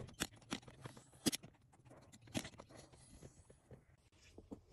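Flush cutters snipping through thin plastic ribs: four sharp snaps in the first two and a half seconds, then a few fainter clicks.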